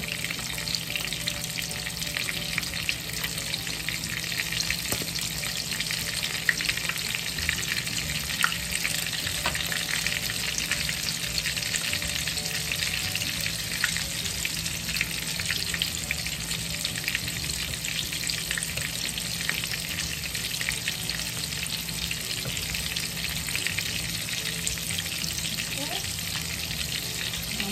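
Breaded chicken breasts shallow-frying in hot oil in a pan: a steady sizzle with many fine crackling pops.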